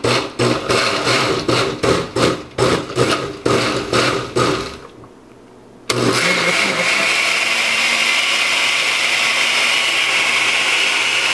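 Glass-jar Oster blender chopping a smoothie of frozen blueberries and kale: about a dozen short pulses, roughly three a second, then after a brief pause it runs continuously at a steady speed.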